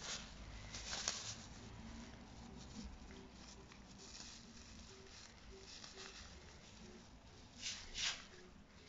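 Thin plastic bag crinkling and rustling as a cat grabs, bites and kicks at it, in faint scattered bursts, with a louder rustle about a second in and two more near the end.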